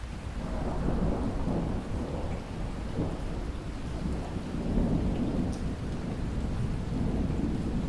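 Steady rain falling, with a low rumble that swells up within the first second and rolls on in waves.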